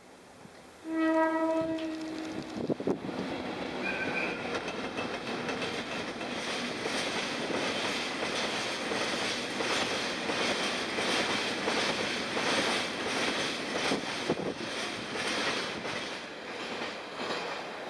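An EF64-1000 electric locomotive sounds its typhon air horn in one blast of about two seconds, about a second in. After it, a long train of tank wagons rolls past with steady wheel and rail clatter.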